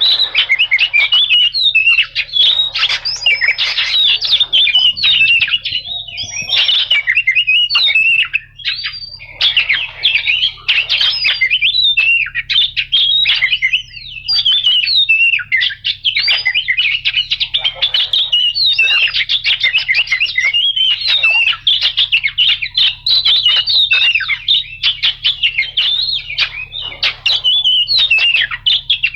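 Oriental magpie-robin (kacer) singing a long, rapid, almost unbroken run of varied whistles mixed with harsh chattering notes.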